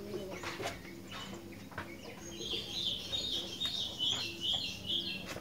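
Sooty-headed bulbul (kutilang) singing: a few short chirps, then from about two seconds in a fast run of high chattering notes. A low steady hum runs underneath.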